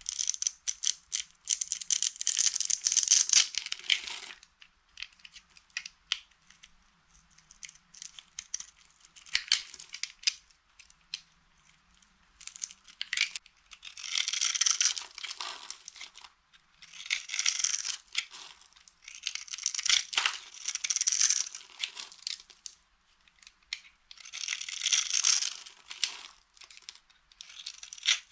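Dry soap being crushed and crumbled, a dense crackling crunch that comes in bouts of one to three seconds with scattered small cracks between them.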